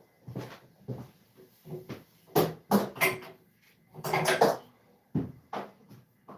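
A run of short knocks and clunks from objects being handled and set down, loudest about two and a half and four seconds in.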